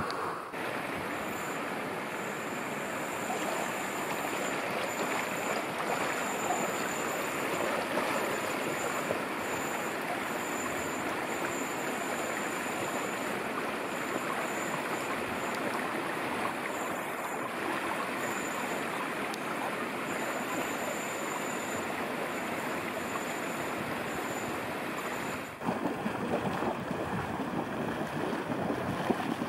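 Steady rushing noise of water and wind, with a faint, high, on-and-off whistle above it. It changes abruptly near the end.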